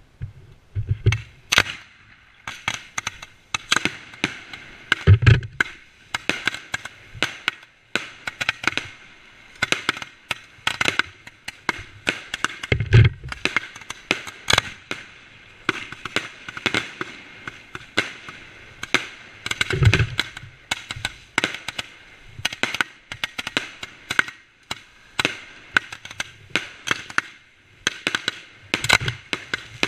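Fireworks going off at close range: a dense, unbroken run of sharp cracks and pops, with a few heavier booms among them.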